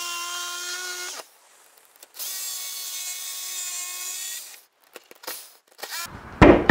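Corded jigsaw cutting through plywood siding in two runs, one of about a second and one of about two and a half seconds, with a steady motor whine over the rasp of the blade. A few small clicks follow, and a loud knock comes near the end.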